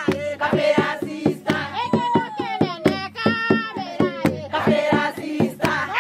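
A group of voices singing a song in chorus over a steady beat.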